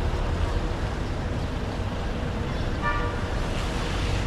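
Steady low rumble of street traffic, with a short horn toot about three seconds in.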